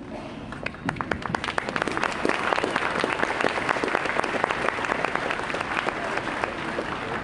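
Large crowd applauding: many hands clapping, starting about a second in and then holding steady.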